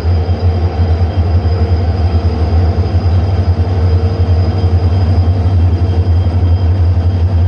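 Twin WDG-4 diesel-electric locomotives, with EMD 16-cylinder two-stroke engines, running with a steady, loud, deep hum.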